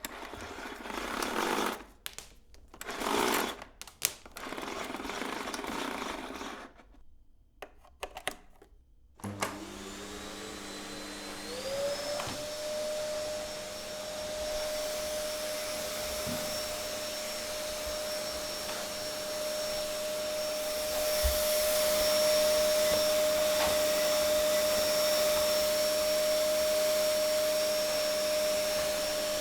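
Vacuum cleaner: irregular handling noises for the first third, then the motor switching on and spinning up with a rising whine that settles into a steady high whine over a constant rush of air. The air noise grows a little louder about two-thirds of the way in.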